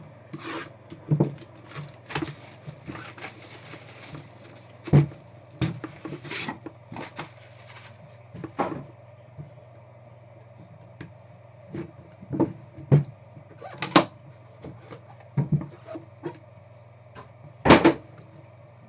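Trading-card packaging and cards being handled and opened: scattered taps, clicks and rustling, with a louder knock about five seconds in and two near the end, over a steady low hum.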